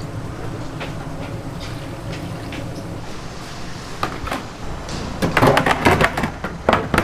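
Clattering of kitchen utensils and containers over a steady background hum, building to a rapid burst of knocks and clanks in the last couple of seconds.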